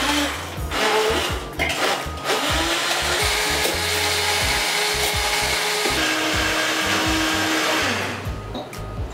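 Flying YX-904 300 W two-speed kitchen blender running, its blades chopping chunks of dragon fruit into a purée. The motor starts at once, runs steadily, and dies away near the end as it is switched off.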